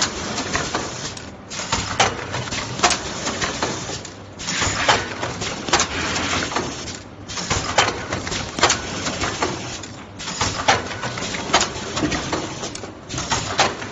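Soap production machinery running: continuous mechanical clatter with frequent sharp clicks and knocks, dipping briefly in loudness every few seconds.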